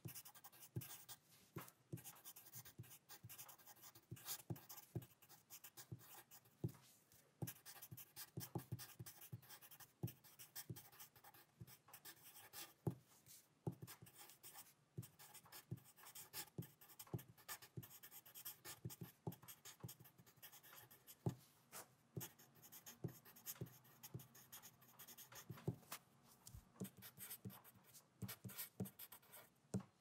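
Handwriting on paper: a writing tip scratching and tapping out short, irregular strokes, faint throughout.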